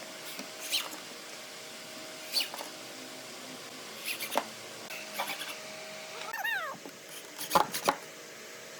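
Scattered knocks and taps of work being handled in a workshop, over a faint steady hum, with a short squeaky call, rather like a cat's meow, about six and a half seconds in.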